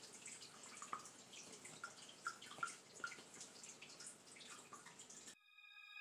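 Near silence: faint room tone with a few soft, short clicks and small blips. Near the end the room sound cuts out and soft held musical tones begin to fade in.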